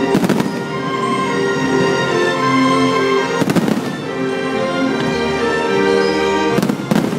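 Fireworks shells bursting in three quick clusters of bangs, at the start, midway and near the end, over loud sustained show music.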